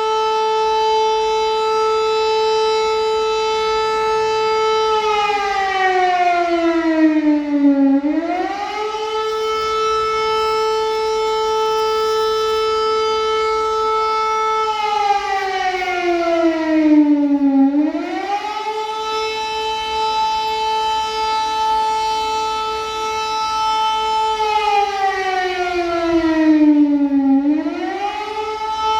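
Civil-defence air-raid siren sounding a missile-danger alert. Its wail cycles about every ten seconds: a quick climb, a steady tone held about five seconds, then a slower slide down, repeated about three times.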